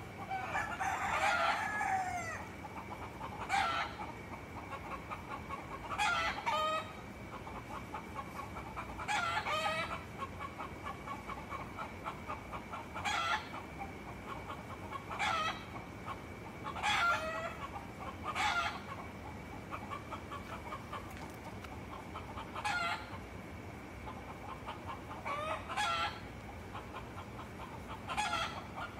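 Roosters crowing loudly again and again, a call every two to three seconds.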